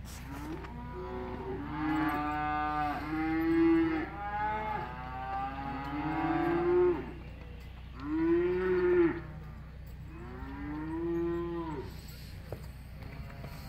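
Cattle mooing repeatedly: several long calls one after another, each rising and then falling in pitch.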